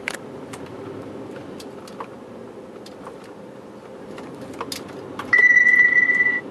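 Steady car-cabin road and engine noise with a few faint clicks. About five seconds in, a loud, steady electronic beep sounds for about a second and cuts off.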